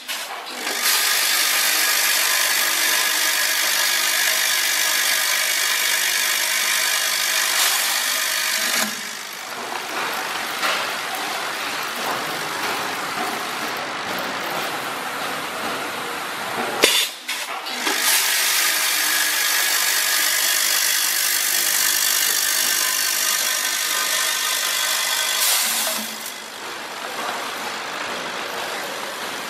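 Coffee-bean linear weigher filling machine with air flushing running through its cycle: two loud, steady stretches of hissing noise, each about eight seconds long, with quieter machine running between and after them and a sharp click about halfway.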